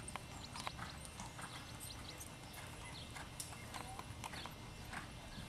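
Hoofbeats of a horse cantering on sand arena footing: irregular soft thuds and clicks, with a low rumble underneath.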